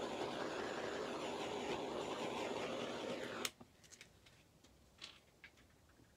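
Handheld gas blowtorch flame running with a steady hiss as it is played over wet poured acrylic paint to bring up cells. It is shut off with a click about three and a half seconds in, followed by a few faint light clicks.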